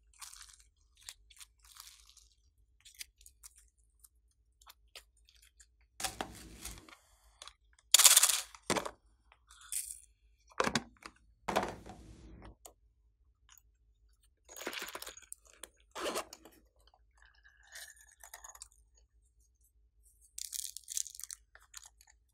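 Hands stretching, pressing and squeezing glossy slime, making short, intermittent sticky crackling sounds with quiet gaps between them; the loudest comes about eight seconds in. Near the end a pink cat-shaped pop-it case is picked up and handled.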